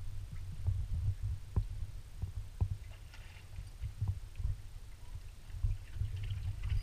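Wind buffeting a camera microphone in an uneven, gusting low rumble, with a few soft knocks.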